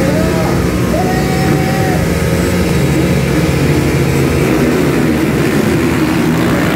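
A row of motocross dirt bikes revving together at the starting gate, many engines overlapping and rising and falling in pitch, then launching off the line near the end.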